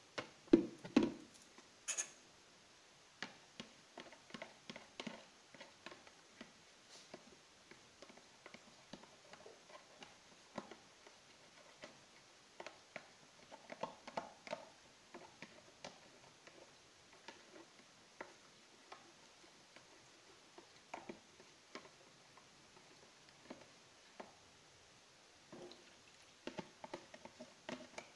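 Metal spoon clicking and scraping against a plastic tub while stirring cornstarch with a little water to dissolve it: faint, irregular light clicks and taps, with a few louder knocks about a second in.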